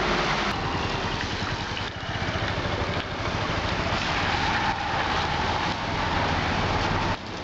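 Vehicles driving on a flooded street: engines running and tyres hissing through standing water, with a motorcycle passing in the second half.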